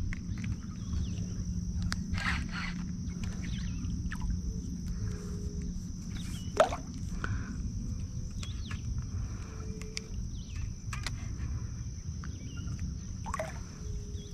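Open-air riverside ambience: a steady low rumble like wind on the microphone, a constant high hiss, and many short scattered bird-like chirps. A single louder sharp sound about six and a half seconds in.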